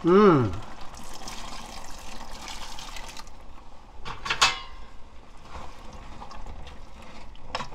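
Boiling water poured from a cup into a pot of seaweed and dried mussels sautéed in sesame oil: a splashing pour that stops about three seconds in, then the soup bubbling. A short falling tone opens it, and another short pitched sound comes a little after the pour.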